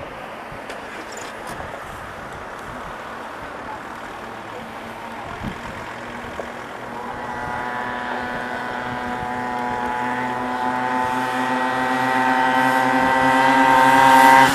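Engine of a small motor vehicle on a kart track, approaching: faint at first under wind noise, then growing steadily louder from about halfway through at a fairly steady pitch.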